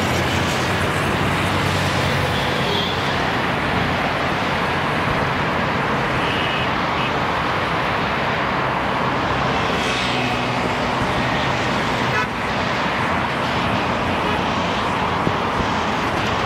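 Steady roar of busy highway traffic heard from a moving bicycle, with a couple of faint short horn toots.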